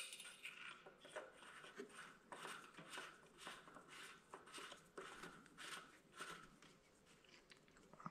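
Near silence: faint scattered rustling and small clicks of handling, with a short click at the start.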